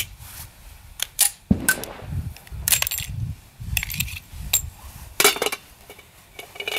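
Sharp metallic clicks and knocks, several spread over a few seconds, as a semi-automatic pistol is handled and set into a wooden rest.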